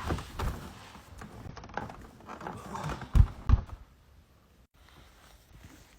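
Scattered knocks and thumps, the loudest two close together about three seconds in.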